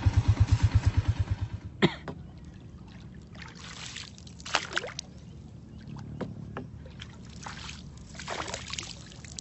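Small boat engine chugging fast and low for the first couple of seconds, then dying away; after a sharp knock, water splashes and trickles a few times.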